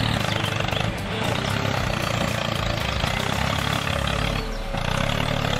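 Steady engine-like drone of a toy road roller driving through loose sand, dipping briefly about a second in and again near the end.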